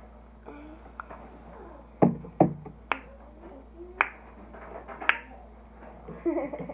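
Five sharp clicks and knocks, unevenly spaced over about three seconds. The first two are deeper thumps and the rest are crisp snaps.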